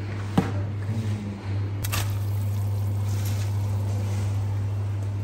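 Water bubbling in a stainless steel pot as handfuls of chopped leafy greens are dropped in. A sharp click comes about half a second in, a knock about two seconds in, and then the bubbling gets louder, over a steady low hum.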